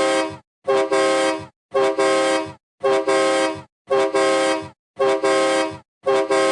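A car horn sound effect honking in a steady repeated pattern, about once a second, each honk a quick double toot running into a held blast.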